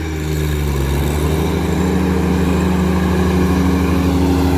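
John Deere compact tractor's engine running steadily as it mows tall grass with its mid-mount mower deck, growing a little louder over the first second or two as it comes closer.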